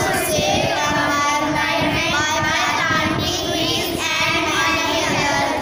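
A group of schoolchildren singing together in unison, loud and continuous.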